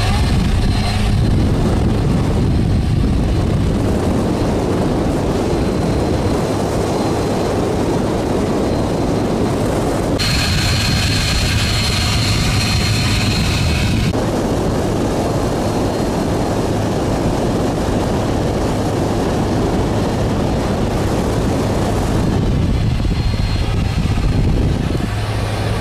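A boat's LLY Duramax 6.6-litre V8 turbo-diesel runs steadily at part-throttle cruise, mixed with rushing water and wind. For about four seconds in the middle, with the engine hatch lifted, the engine comes through brighter, with a high steady whine.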